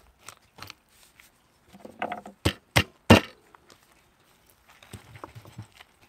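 Small axe chopping through a whole deep-fried chicken into a wooden cutting board: a few sharp chops in the first second, then three hard chops in quick succession about two and a half to three seconds in, the last the loudest, with lighter knocks after.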